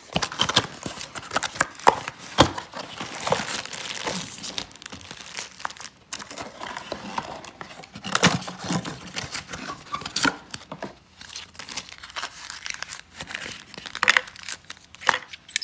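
Clear plastic packaging crinkling and rustling as it is handled and unwrapped, with irregular crackling and a few louder snaps now and then.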